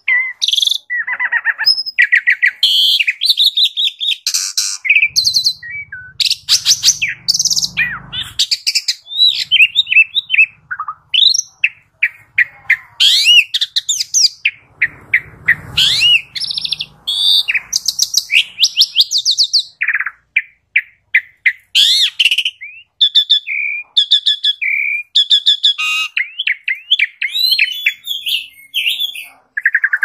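Small songbirds of several kinds chirping, trilling and whistling in quick succession, the calls overlapping and following one another without pause: a bird-lure call recording for small birds.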